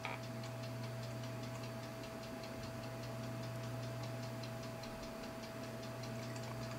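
Faint steady hum with a soft, even ticking, several ticks a second, from a small machine.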